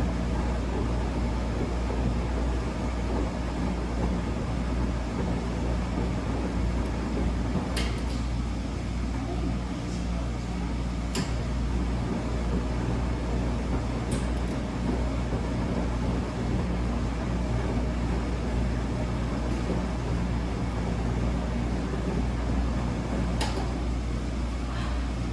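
Wascomat Senior W125 commercial washing machine running mid-cycle: a steady motor hum, with a few sharp clicks along the way.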